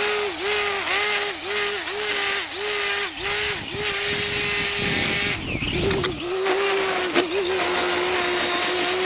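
A string trimmer (whipper snipper) running at high speed. Its pitch dips repeatedly, about three times a second, as the line cuts into thick grass, and holds steadier for a stretch in the middle.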